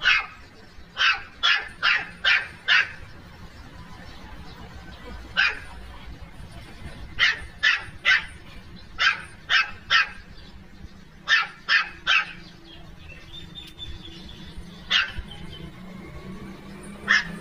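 Puppy barking in short, high-pitched yaps, in runs of three to five with pauses between.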